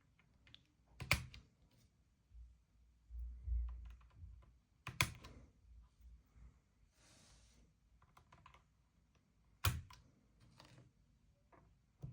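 Key presses on an Akko M1 V5 mechanical keyboard fitted with EPOMAKER Bluebird switches: scattered single keystrokes rather than fast typing. Three louder clacks come about a second in, near five seconds and near ten seconds, and a low thump comes around three and a half seconds in.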